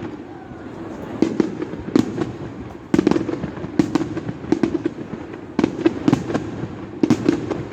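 Fireworks display: an irregular run of sharp bangs, about a dozen, several coming in quick pairs.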